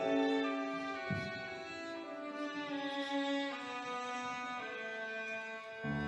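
Violin playing a slow, sustained melody with grand piano accompaniment. Low piano notes come in strongly near the end.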